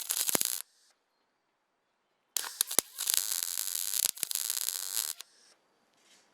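MIG welder crackling as it lays weld into bolt holes in a sheet-metal car hood, run on a low setting against stick-on ceramic backing. One burst stops about half a second in, and a second burst starts about two seconds in and lasts about three seconds.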